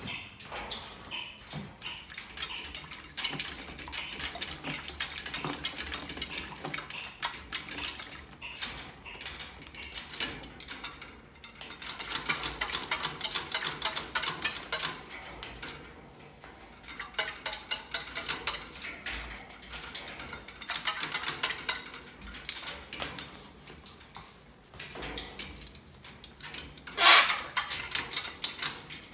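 Umbrella cockatoo bathing in a stainless steel water bowl: rapid splashing, with beak and feet clattering against the metal bowl, in bursts with short pauses. One louder, sharper sound comes near the end.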